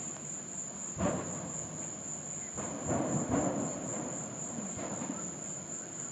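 Crickets trilling in one steady high tone, over a low rumbling noise broken by a few sudden thumps, the first about a second in.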